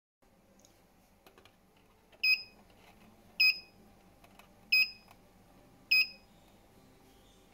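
Key-press beeps from a CashTek ST-8192T banknote counter's touch screen: four short, high electronic beeps about a second and a quarter apart. Each beep confirms a tap as the counting mode is toggled between MDC and SDC.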